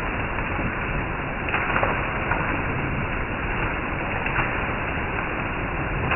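Heavy rain falling steadily, with water streaming off a roof edge onto the ground and leaves, and a few sharper drop taps scattered through it.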